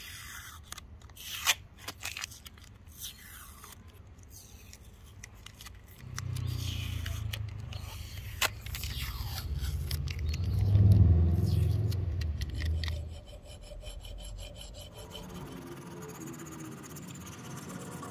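Repeated scraping strokes of a hand tool on a padauk wood hatchet handle. A low rumble swells in for several seconds through the middle and is the loudest part.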